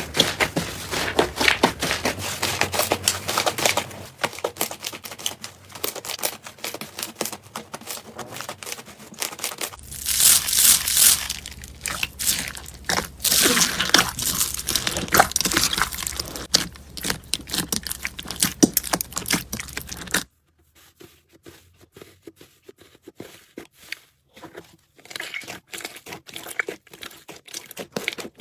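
Slime being squished and worked by hand, a dense run of sticky crackling and popping clicks. About two-thirds of the way through it drops suddenly to a quieter stretch of sparser clicks.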